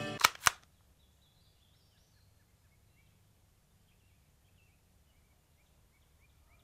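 Two sharp knocks about a quarter of a second apart near the start, then a quiet outdoor background with faint, scattered bird chirps.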